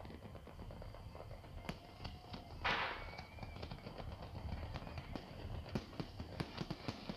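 Fireworks display: an irregular run of pops, bangs and crackles from shells bursting, with one louder, longer burst about two and a half seconds in.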